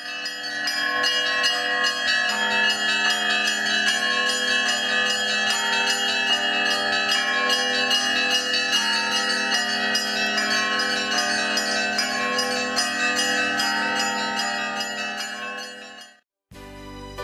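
A peal of several church bells at different pitches, struck rapidly over and over, several strokes a second. It stops abruptly near the end, and music begins.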